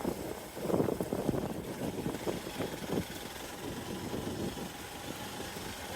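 Hero XPulse 200 Pro's single-cylinder engine running, louder for about the first second, then settling to a steadier, quieter note.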